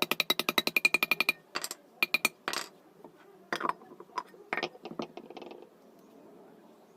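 Metal parts clinking during a ceiling fan bearing change: a fast run of ringing metallic clicks, about a dozen a second for a second and a half, then scattered clinks and taps that stop about five and a half seconds in.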